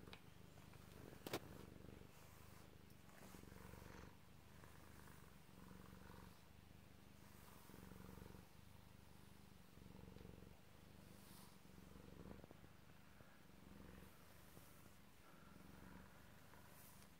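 Himalayan cat purring steadily in pulses about a second long, the sound of a contented cat being brushed. A single sharp click about a second in.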